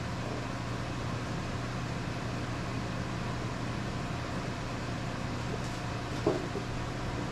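Steady electric hum of a running motor or fan in a machine shop, with one light knock about six seconds in.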